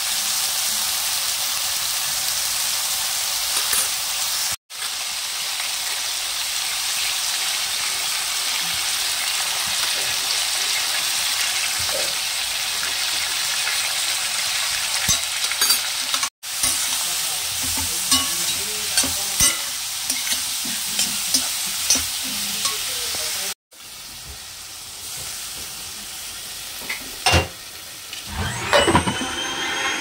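Diced vegetables sizzling in a hot stainless steel kadai, with a metal spatula clicking and scraping against the pan as spices are stirred in. Near the end the sizzle drops lower and there are metal clinks with a brief ringing as the pan is covered with a glass lid.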